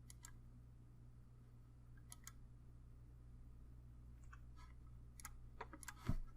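A few faint computer mouse clicks, some in quick pairs, over a low steady electrical hum.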